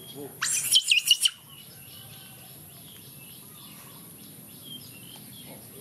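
A quick cluster of loud, shrill high-pitched chirping calls about half a second in, then faint scattered chirps over a steady very high-pitched hum.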